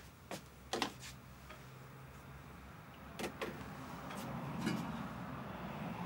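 A few sharp clicks and knocks of kitchen things being handled, then a steady low hum with a rushing noise that builds from about four seconds in.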